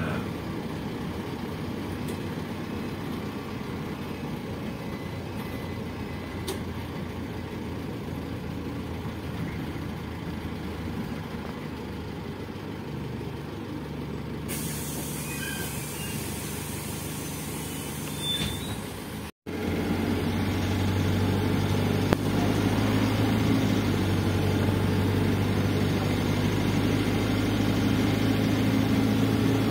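PAZ 320414 bus heard from inside the passenger cabin while driving: a steady engine drone with road noise. About halfway through a hiss comes in, the sound cuts out for an instant, and then the engine is louder and steadier, pulling under way.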